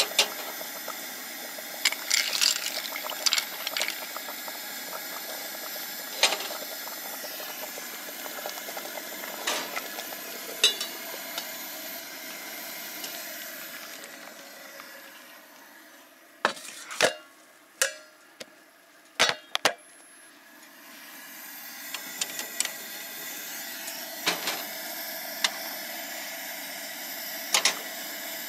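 Steady hiss of a camp stove burner under an aluminium pot of simmering penne in tomato sauce, with occasional light metal clinks. For several seconds in the middle the hiss falls away, and a handful of sharp clicks sound.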